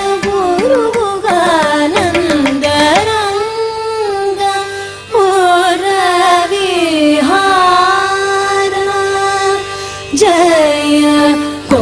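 Carnatic classical music: female vocals singing long, sliding, ornamented notes over violin and percussion accompaniment, with the sound dipping briefly about five seconds in and again near ten seconds.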